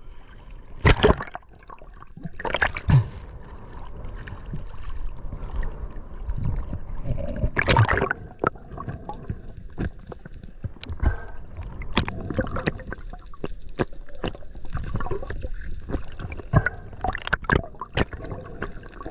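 Seawater sloshing and gurgling around a camera moving at the surface and underwater, with several louder swashes and scattered sharp clicks.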